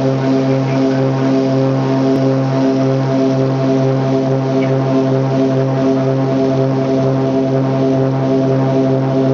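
Twin turbocharged six-cylinder engines and propellers of a Cessna 402B on the takeoff roll, heard from inside the cabin: a steady drone that pulses about twice a second.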